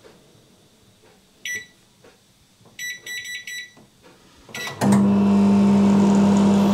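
Combination microwave-grill oven being set: a single keypad beep, then a quick run of about five beeps, then one more. The oven starts about five seconds in and runs with a loud, steady hum.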